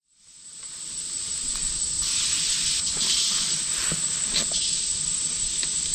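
Steady high insect chorus, a shrill even buzz with a constant high whine, fading in over the first second or two.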